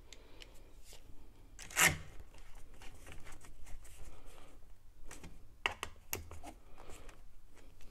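Small clicks, scrapes and rubbing of hands and a hand tool on a brass pipe fitting of a sanitary wall box as it is tightened, with a louder scrape about two seconds in and a cluster of clicks past the middle.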